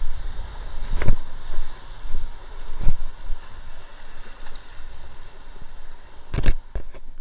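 Surf washing over shoreline rocks, with wind rumbling on the microphone. A few sharp knocks from the handheld camera being handled: the loudest about a second in and near three seconds, and two more near the end.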